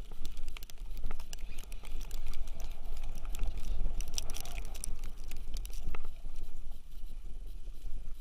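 Wind rumbling on the microphone, with many light ticks and taps scattered through it.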